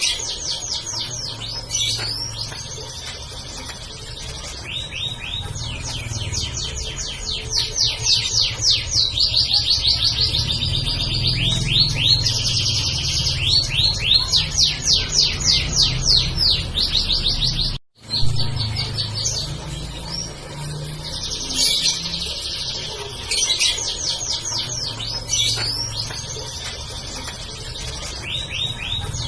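Domestic canary singing a long continuous song of fast rolling trills and rapid runs of repeated notes, broken by a momentary gap about two-thirds of the way through.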